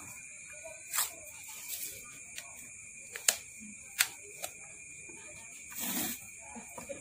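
Paper tape being pulled off its roll and wrapped around a hand-wound transformer coil. A few sharp clicks and taps come from the handling, and a short rasp of tape peeling off the roll comes near the end.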